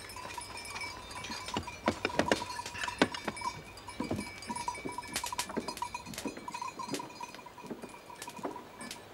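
Goat bells clanking and clinking irregularly as a small herd of goats is moved about, with scattered knocks among the rings.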